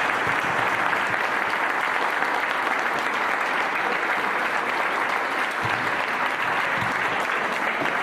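Audience applauding steadily: many people clapping in a hall after a speaker says thank you and ends his speech.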